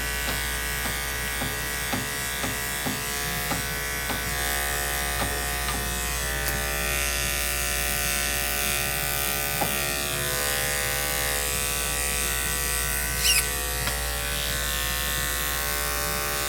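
Electric dog grooming clippers running with a steady buzz during a shave-down of a matted coat, with faint ticks over the first few seconds. A brief high squeak about 13 seconds in.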